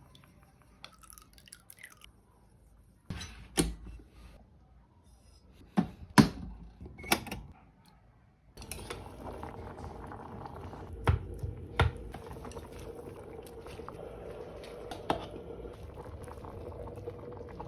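Cooking sounds: a few sharp knocks of kitchen utensils, then from about halfway through a steady liquid sound with more clicks over it.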